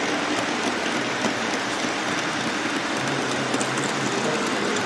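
HO scale model freight train rolling past close by, its wagon wheels clattering steadily and densely on the track. A faint low hum joins about three seconds in.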